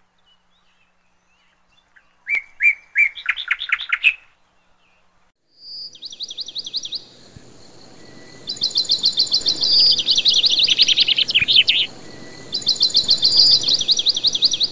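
Caged lovebird calling: a few short chirps about two seconds in, then long, fast, high trills of rapidly repeated notes in three bouts from about six seconds on.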